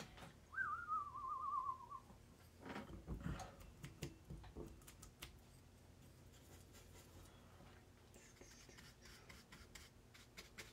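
A short whistled note with a fast warble, falling in pitch, about half a second in; then a brief soft rush, and faint taps and strokes of a paintbrush on watercolour paper.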